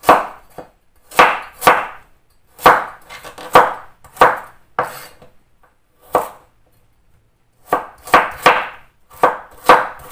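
Kitchen knife chopping a carrot into small pieces on a wooden cutting board: about a dozen sharp knocks of blade on board at an uneven pace, with a pause of over a second about midway.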